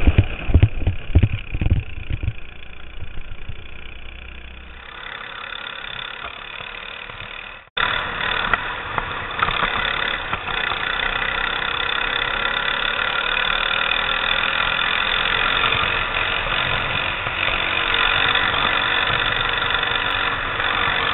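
Go-kart engine running, recorded by an onboard camera, with heavy thumps and knocks in the first couple of seconds as the kart jolts over the kerb. The sound breaks off abruptly about eight seconds in, then the engine carries on louder and steady.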